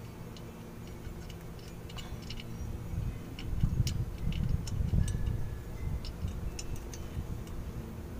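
Small metallic clicks and taps as parking brake shoe parts (the shoe, a small spring and a stopper pin) are handled and fitted against the drum brake's backing plate, with a low rumble of handling noise about midway.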